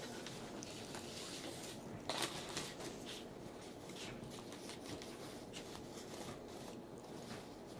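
Light rustling and small clicks of things being handled at a table, louder for a moment about two seconds in.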